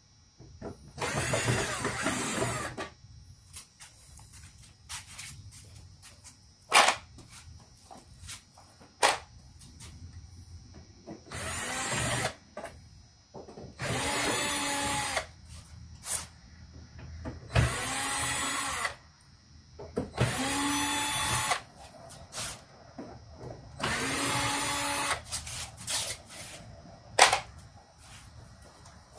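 Power drill run in about six short bursts of a second or two each, its whine bending in pitch as each burst spins up. Sharp clicks and knocks fall between the bursts.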